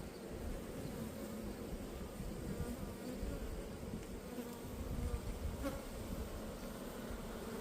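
Many honeybees buzzing together in a steady hum from an opened hive.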